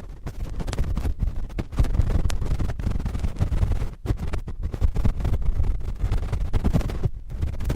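Cotton swabs scratching and rubbing on a microphone, a dense run of quick, irregular scratchy strokes with heavy rumbling low-end handling noise.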